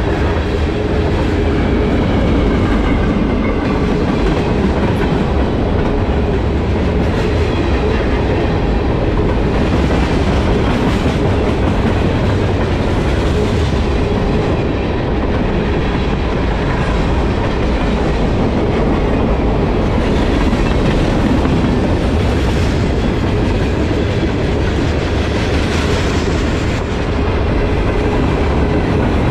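Freight cars of a Canadian National manifest train rolling past close by: a loud, steady rumble of steel wheels on the rails, with a steady tone underneath.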